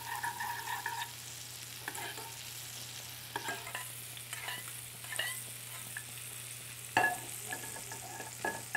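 A metal spoon stirs and scrapes in a small saucepan as sugar is stirred into reduced black tucupi to caramelise it, with a squeaky scrape in the first second and scattered taps against the pan, the loudest about seven seconds in. Underneath, fish fillets sizzle steadily in oil in a grill pan.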